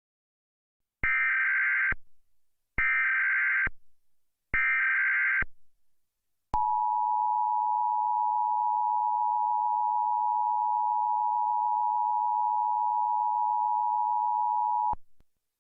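Emergency Alert System tones: three short warbling SAME header data bursts, each about a second long, then the steady two-tone EAS attention signal (853 and 960 Hz together) for about eight and a half seconds, which cuts off near the end. They open a tornado warning.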